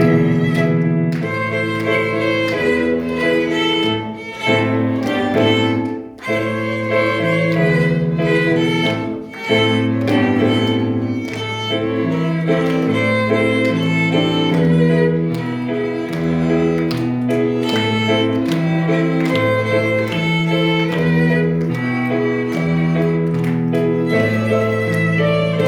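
A small string ensemble of violins and cello plays a melody over a moving line of held low notes.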